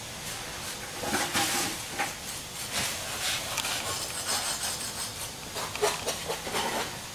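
Compressed-air hiss of a premix concrete spray-up gun, coming and going in several short surges as the mix is sprayed into the form.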